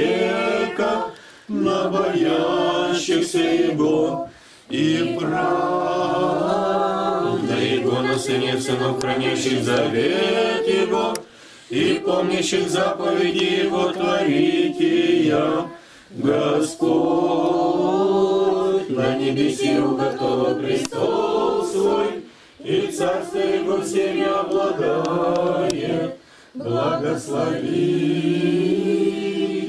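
Small Russian Orthodox congregation of women, children and men singing a hymn together a cappella, in long held phrases with a short pause for breath every few seconds.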